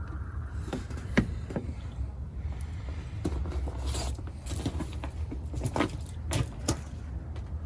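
Irregular light metallic clinks and taps of hand tools and parts being handled during an oil change, over a steady low hum.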